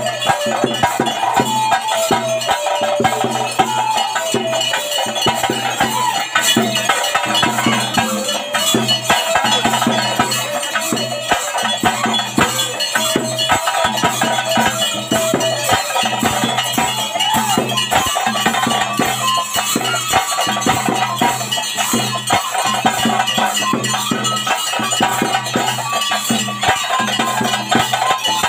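Live ritual festival music: fast, dense drumming under a high, wavering melody line on a wind instrument, running on steadily.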